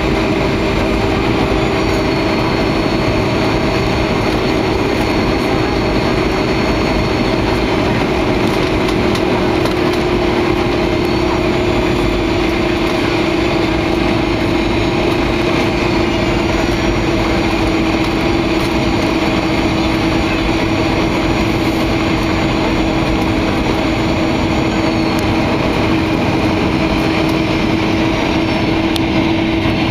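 Cabin noise of a Boeing 737-800 on final approach and landing: the CFM56 jet engines and airflow make a steady, loud roar with a steady low hum and faint high whines that come and go.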